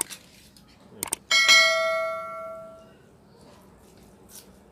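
A piece of tableware struck once at the table, ringing with several overtones and fading over about a second and a half, just after a few light clicks.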